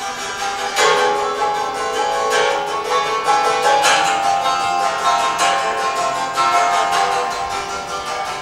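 Long tabletop string instruments being struck with slender sticks and plucked by hand, playing ringing string notes. A sharp strike comes about every one and a half seconds, each followed by sustained ringing tones.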